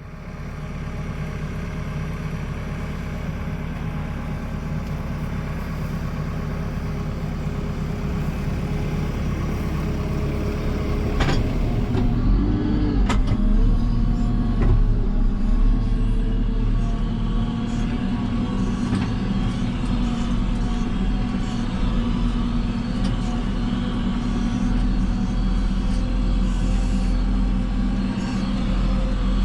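JCB 3CX backhoe loader's diesel engine running steadily under work, growing louder about 12 seconds in, with a couple of sharp metallic knocks around then.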